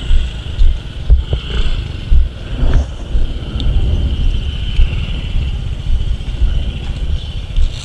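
Small motor scooters running at low speed as they turn and pull in, their engines under heavy, choppy wind rumble on the action camera's microphone.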